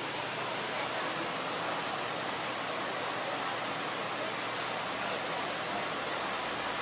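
Steady rushing noise with a faint low hum, the even background of a street-food stall's cooking area; no separate clinks or knocks stand out.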